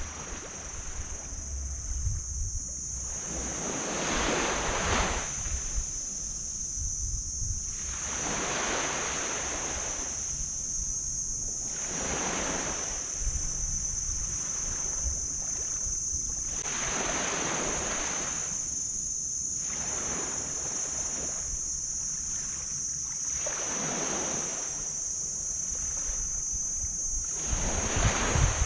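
Small tropical waves washing onto a black sand beach, each swelling and fading about every four seconds, over a steady high-pitched hiss. Low wind rumble on the microphone near the start and end.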